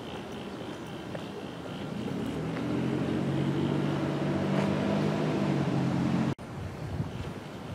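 A steady, low engine-like hum at an even pitch, building up about two seconds in and cutting off abruptly about six seconds in, over outdoor background noise.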